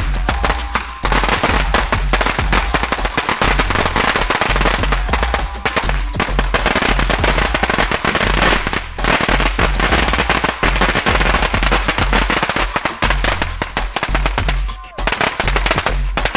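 A huge batch of firecrackers going off as one continuous, rapid crackle of bangs, with a brief lull near the end.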